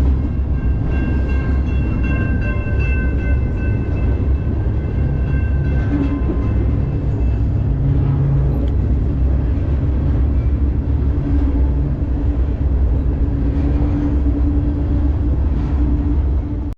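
Moving freight train heard from aboard: a steady, loud low rumble of the cars rolling on the rails, with a high, steady squeal of several tones over the first several seconds.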